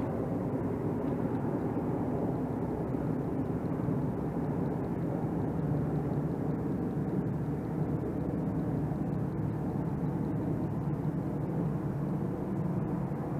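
A steady low hum that holds one level and pitch throughout.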